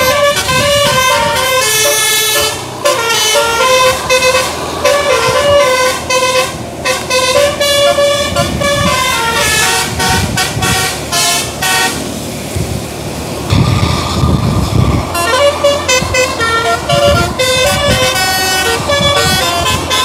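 Bus basuri musical horn playing a telolet melody, a fast run of short stepped notes, with a short break about twelve seconds in before the tune resumes.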